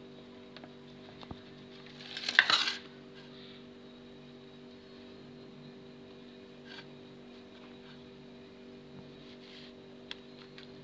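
A knife clinking and scraping against a metal tray as it cuts through a slab of barfi, with one louder scrape about two seconds in and a few faint ticks after it, over a faint steady hum.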